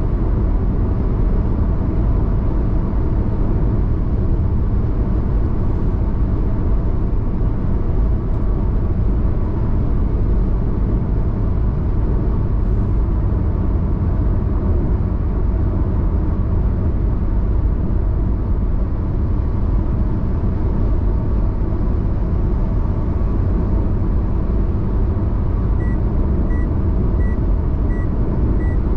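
Steady road and tyre noise with engine rumble inside a car cruising on a highway. Near the end, a run of short high electronic beeps, about two a second.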